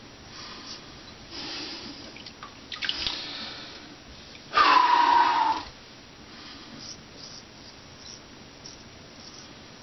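Water from a bathroom tap splashing into the sink in short runs, the loudest lasting about a second near the middle, as the straight razor is rinsed. Before and after, a straight razor scrapes faintly through beard stubble.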